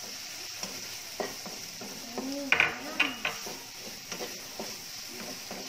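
Chicken and mushroom pieces sizzling in a frying pan while a spatula stirs and scrapes them. Several clacks of the spatula against the pan come through; the loudest are a little past two and a half seconds in and about three seconds in.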